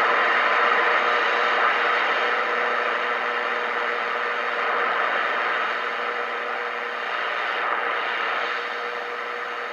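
Radio Shack DX-160 shortwave receiver tuned to the longwave beacon band, its speaker giving out steady static hiss with a faint steady tone underneath.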